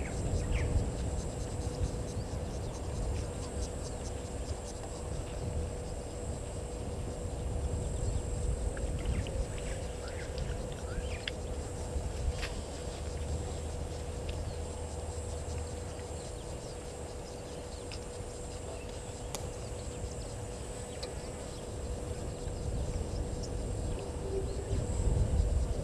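Outdoor bush ambience: a low rumble of wind on the microphone, a steady high insect buzz and a steady faint hum. A few short bird chirps come about a third of the way in.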